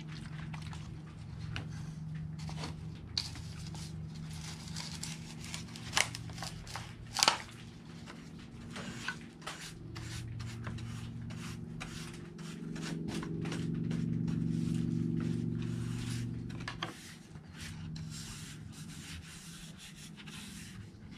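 Paintbrush stroking teak sealer onto bare teak slats: a run of short, scratchy brushing rubs. Two sharp knocks come about a third of the way through, and a low steady hum underneath swells for a few seconds past the middle.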